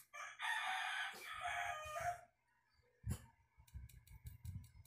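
A rooster crowing once: a single long call of about two seconds. It is followed by a knock about three seconds in and a quick run of light clicks near the end.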